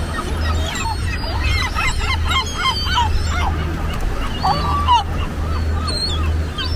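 A flock of gulls calling, with many short overlapping cries crowded together in the first few seconds and one longer call about halfway through, over a low steady rumble.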